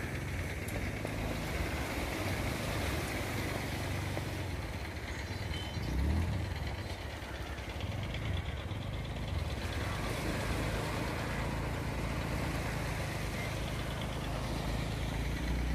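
An engine running steadily at low speed with a low rumble, swelling briefly about six seconds in and again near the end.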